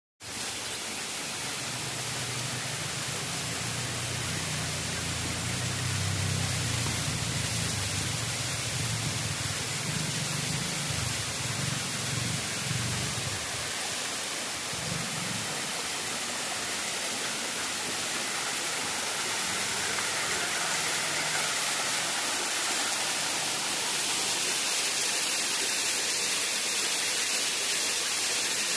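Waterfall rushing with a steady, full hiss of falling water. A low rumble runs under it through the first half and fades out about halfway.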